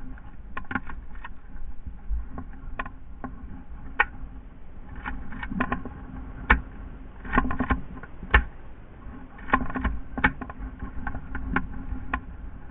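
Irregular clicks, knocks and crunches of a player moving on foot through dry brush, with gear and the camera mount rattling, some of them in quick clusters, over a steady low rumble.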